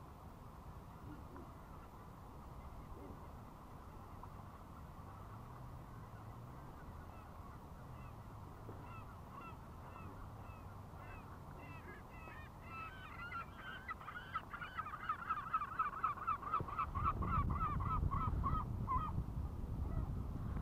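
A flock of birds calling across the water: scattered calls from about nine seconds in build into a fast, even run of about four calls a second, then break off about a second before the end. A low rumble joins in near the end.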